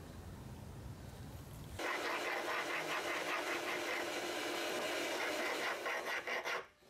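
Flat hand file rasping in repeated strokes inside the cut end of a piece of metal square tubing, deburring it. The strokes start about two seconds in and stop shortly before the end.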